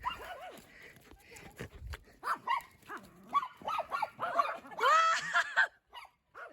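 Dog giving a quick run of short, excited barks and yips that build up, with a few longer, louder rising whines near the end.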